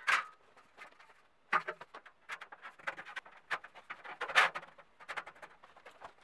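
Thin sheet-steel drywall studs scraping and clinking as they are handled and slid into their tracks: irregular clicks and short rasps, the loudest a little over four seconds in.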